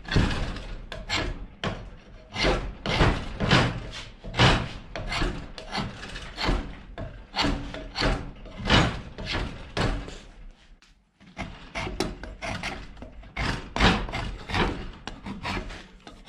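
A long steel rasp drawn in repeated scraping strokes, about two a second, across a wooden hatchet handle clamped in a vise, with a short pause about eleven seconds in. The rasp is dull and in need of sharpening, so it takes off little wood.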